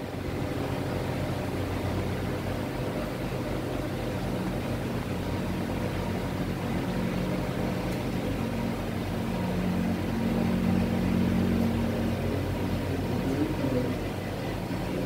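A steady low mechanical hum, with a slightly stronger tone for a few seconds in the middle.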